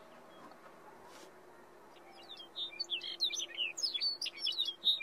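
A small songbird singing a rapid, varied run of high chirps and trills, starting about two and a half seconds in, over a faint steady low hum.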